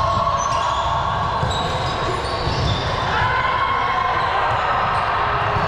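Sports-hall ambience during a ball game: indistinct distant voices and short, thin high squeaks like shoes on a court floor, over a steady low rumble.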